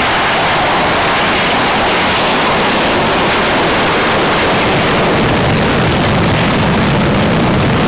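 F/A-18 Hornet's twin jet engines at full power during a carrier catapult launch. A loud, steady rush of jet noise that turns deeper a few seconds in as the jet leaves the deck.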